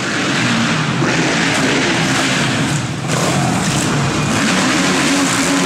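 Motocross motorcycle engines revving up and down on a supercross track, their pitch rising and falling over a steady rushing noise.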